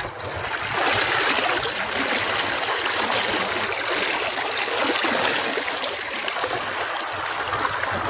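Water rushing and splashing steadily along the hull of a small sailboat moving under sail at about 3.4 knots.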